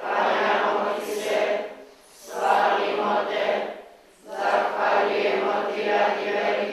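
Church congregation singing a hymn together, in sung phrases of about two seconds with short breaks between the lines.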